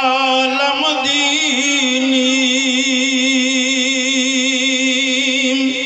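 A man's voice amplified through a PA system, holding one long chanted note with vibrato as part of a sermon. The pitch lifts briefly about a second in, and the note ends just before the close.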